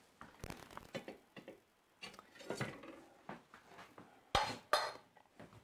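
Kitchen utensils and tools being handled and set down on a countertop: a scattering of light clinks and knocks, with two sharper clacks in quick succession about four and a half seconds in.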